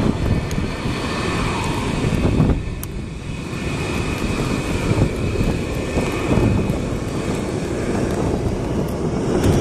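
Jet engines of a Delta airliner, which the spotter takes for a Boeing 757, running steadily as the aircraft passes close by: a dense rushing noise with a faint high whine.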